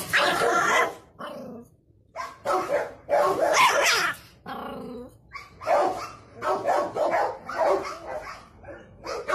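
Small white fluffy dog in a wire crate barking repeatedly, a long run of short barks with some growling mixed in.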